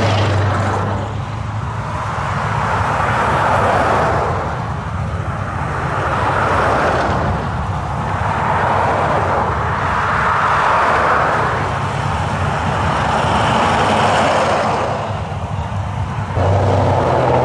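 Road traffic of cars, SUVs and pickups driving past, each swelling and fading in turn about every three seconds. Underneath is a steady low rumble of an idling V8-style engine, which grows louder near the end.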